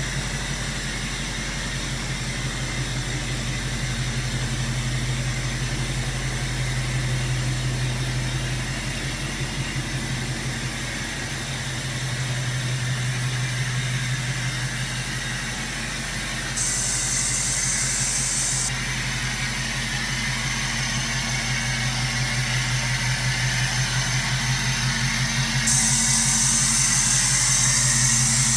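Ford F-250's 6.7-litre Power Stroke turbo-diesel V8 idling steadily. A high hiss comes in briefly about two-thirds of the way through and again near the end.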